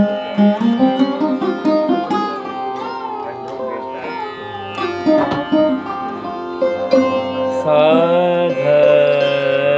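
Indian music played live: a plucked lute picks out a melody with sliding, bending notes, together with a small instrument held to the mouth. From near the end a held note sounds over a steady low drone.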